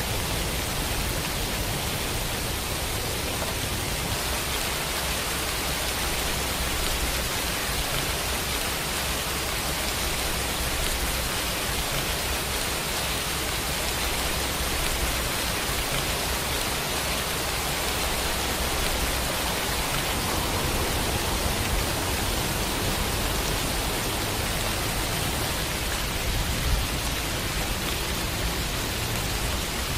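Steady rain falling, a dense, even hiss that does not let up. There is one brief low thump near the end.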